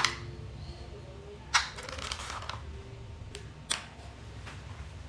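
A few sharp clicks and a short rustling scrape, like small parts and tools being handled on a workbench, over a faint steady low hum.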